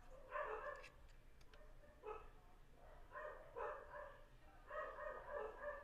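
A dog barking faintly in four short bursts. A couple of light clicks in the first second and a half.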